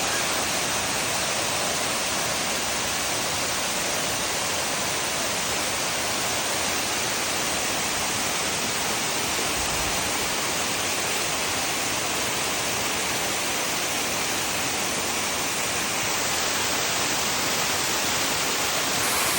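Waterfall pouring, a loud, steady rush of water close by.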